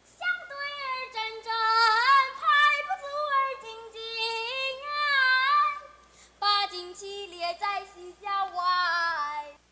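A young girl's high voice singing solo, holding long notes and sliding between pitches, with a brief pause a little after six seconds.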